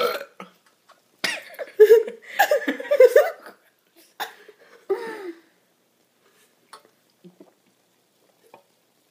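A burp ending just at the start, then people laughing and giggling in short bursts for a few seconds, dying away about five and a half seconds in.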